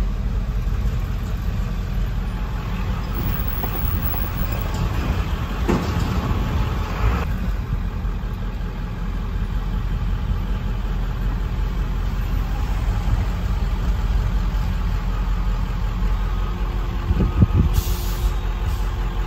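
Truck engine and road noise heard inside the cab while driving, a steady low rumble. A brief hiss comes near the end as the truck pulls up.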